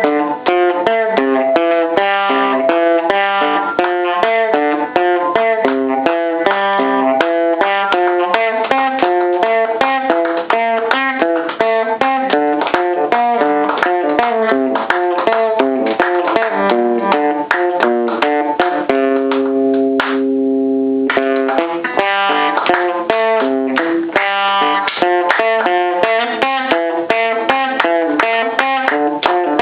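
Guitar playing a quick, continuous melody of plucked single notes, with a few notes held ringing for about two seconds near the middle.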